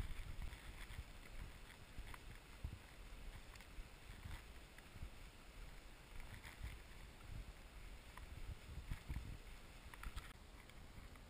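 Faint footsteps crunching in fresh snow at a walking pace, soft and irregular, over a low rumble.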